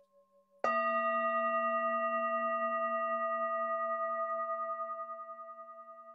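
A bell struck once about half a second in, then ringing on with several steady tones at once. It fades slowly, with an even pulsing in its loudness.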